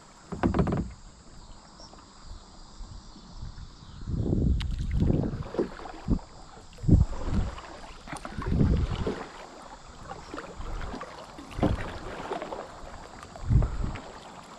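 Kayak paddle strokes dipping and splashing in the river water, in uneven surges every second or two.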